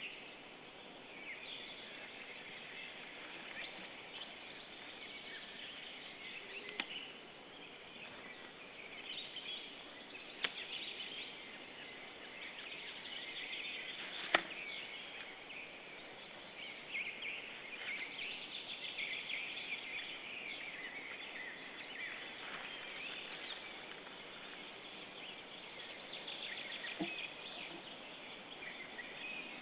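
Small songbirds chirping and singing in a busy, overlapping chorus, with a few short sharp clicks, the loudest about halfway through.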